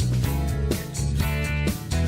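Music with a strong bass line and a steady beat, with new notes struck about twice a second.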